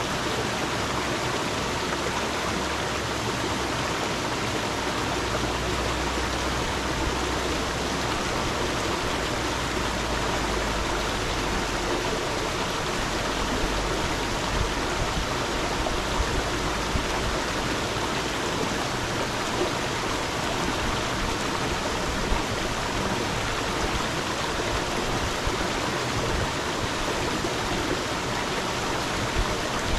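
A stream flowing steadily, a constant even rush of water. A low rumble underlies it for the first third, and there are a few brief louder splashes in the second half.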